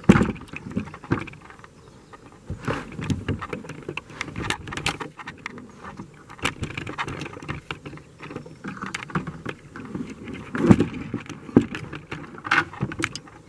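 Handling noise in a plastic kayak: irregular knocks, clunks and rustles as gear is moved about and the mounted camera is jostled. The loudest knock comes right at the start, another sharp one about three-quarters of the way through.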